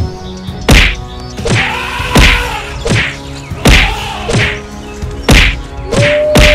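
Cartoon fight sound effects: a string of heavy whacks and thuds, about one every three-quarters of a second, with rising-and-falling animal cries between some of the blows.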